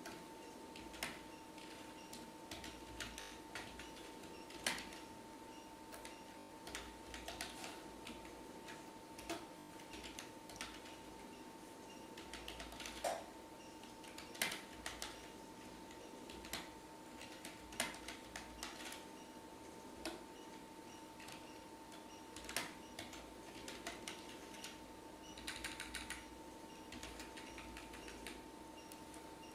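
Computer keyboard typing: irregular single keystrokes with a quick run of keys near the end, over a faint steady hum.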